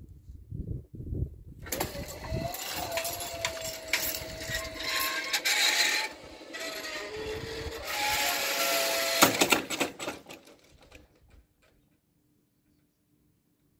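Level crossing barrier with a hanging mesh skirt lowering, its drive giving a steady whine amid rattling and clicking, which stops abruptly about nine seconds in; then near silence.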